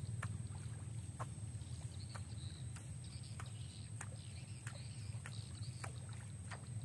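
Fishing reel being cranked to retrieve a minnow lure: sharp clicks about twice a second over a steady low rumble.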